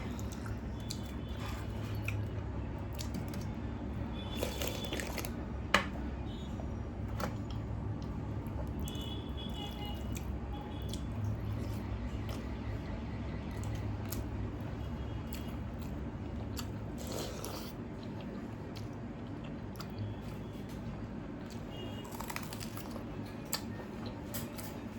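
Close-miked eating: wet chewing and squishing of soaked panta rice with curry, with crunching bites in between, over a steady low hum. A single sharp click about six seconds in.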